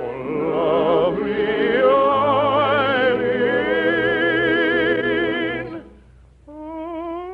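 Operatic singing with orchestra: the singer holds a long note with a wide vibrato that ends about six seconds in. After a brief lull, an orchestral melody line begins near the end.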